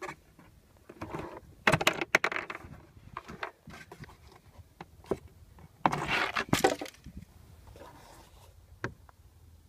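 Hard plastic clicks and rattles as the glovebox lid's damper strut is unclipped and the lid is handled: a cluster of clicks and knocks about two seconds in, another about six seconds in, and one sharp click near the end.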